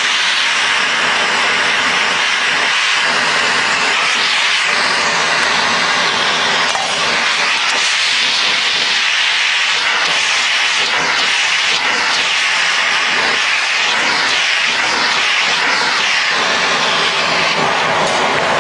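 Gas torch burning with a loud, steady hiss, heating chromoly steel frame tubing to join it.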